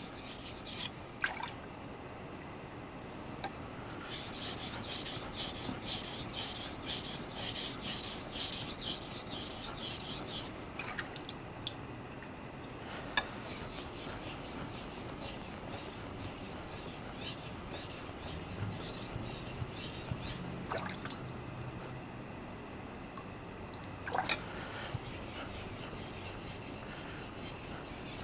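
Steel blade of a 210 mm Hatsukokoro gyuto being stroked rapidly back and forth on a wet 3000-grit whetstone: a steady scraping rasp in three long runs with short pauses between them, and a few light clicks in the pauses. This is the polishing stage on the second side of the secondary bevel, raising a small burr.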